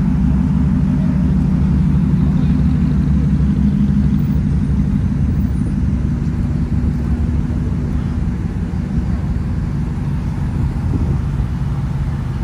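Lifted Dodge Ram pickup trucks rolling slowly past, with a deep, steady engine and exhaust rumble that eases off a little in the last few seconds.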